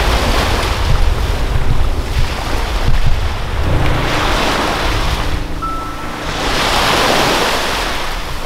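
Small sea waves breaking and washing up a sandy beach, swelling and ebbing in two surges in the second half, with wind rumbling on the microphone for the first few seconds.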